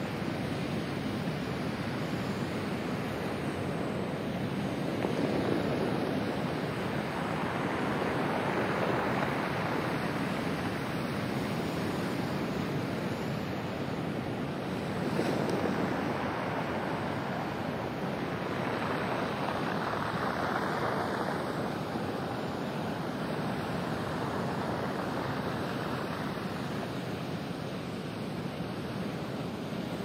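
Pacific Ocean surf breaking and washing up over a pebble beach: a continuous wash of noise that swells about four times as waves come in.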